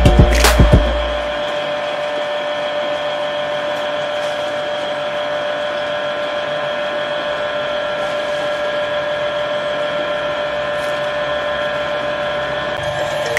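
A steady, even whirring hum with several constant tones, the sound of a small electric motor running, after a few beats of music in the first second.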